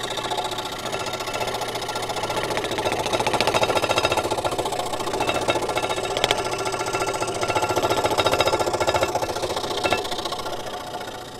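Scroll saw running and cutting cedar: the reciprocating blade makes a rapid, steady chatter. It grows quieter near the end.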